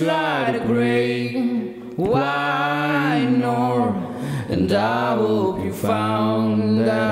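Male vocals singing long, drawn-out notes with no clear words, in about three held phrases that bend in pitch.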